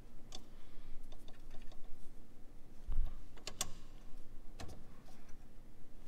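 Light, scattered clicks and knocks of a metal sway bar quick-disconnect end link being handled and slid onto its mounting pin with a rubber spacer, with one duller thump about three seconds in.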